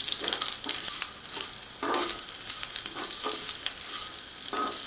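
Hot oil sizzling and crackling in a non-stick pan around a tempering of garlic, urad dal, green and dry red chillies, mustard seeds, fenugreek and freshly added curry leaves. A slotted steel spatula stirs it, scraping the pan a few times.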